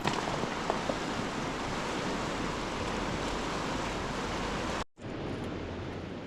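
Steady rushing of river water, an even noise without any rhythm. It cuts out briefly about five seconds in and resumes slightly changed.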